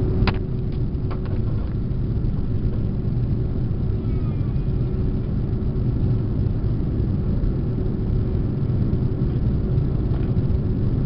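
Steady cabin noise inside an Airbus A330-300 in flight: a low rumble of engines and rushing air with a faint steady hum running through it. A single brief click comes about a third of a second in.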